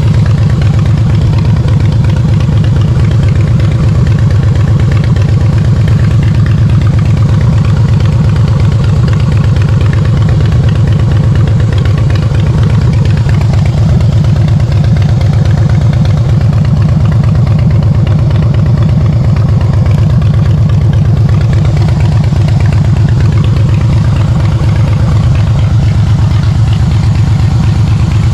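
Harley-Davidson Softail Standard's V-twin engine running steadily at an even speed, with no revving.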